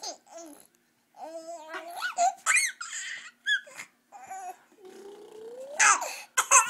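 Baby babbling and laughing in short, high-pitched bursts, with a long rising squeal about five seconds in.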